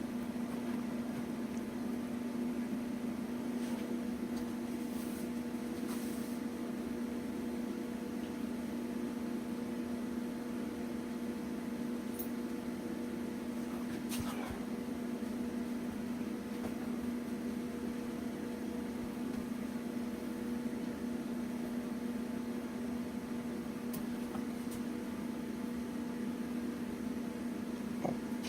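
A steady low hum runs throughout, with a few faint, scattered clicks.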